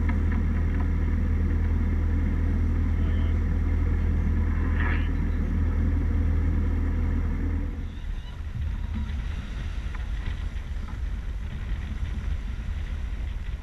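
Sailing yacht's inboard diesel engine running with a steady low hum while motoring. About eight seconds in, the engine sound gives way to wind on the microphone and water rushing past the hull as the yacht sails.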